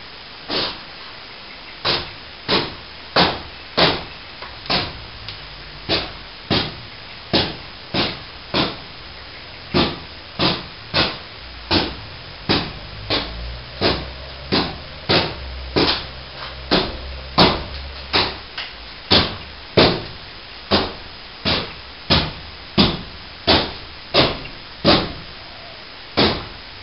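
Repeated hammer blows, about one and a half a second at a steady pace, during work on a plasterboard ceiling. A low rumble sits under the blows in the middle.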